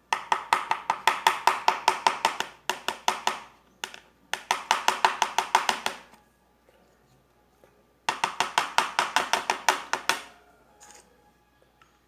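Rapid, even clinking in three bursts of a few seconds each, about six strokes a second: a utensil knocking against a plastic pot, mixing paint into slime glue.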